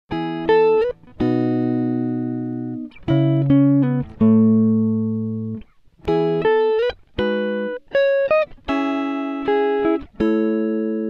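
Background music of plucked string notes, each one ringing and then dying away, a few with a short slide in pitch.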